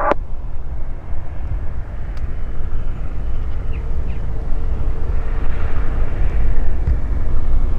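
Cessna F172P Skyhawk II on landing approach: a low, uneven drone from its piston engine and propeller, growing a little louder in the second half as the plane comes closer. A short click at the very start.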